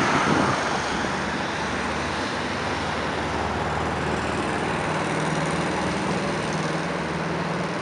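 City street traffic with cars driving past. A classic Volkswagen Beetle's air-cooled flat-four fades over the first second as it drives away, and a low, steady engine hum from another passing car comes in about five seconds in.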